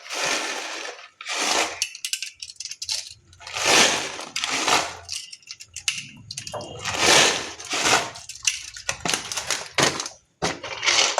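Sev, the crisp fried gram-flour noodles, being sprinkled onto papri chaat on a steel plate. It makes a dry, crunchy patter in several short bursts, one for each handful.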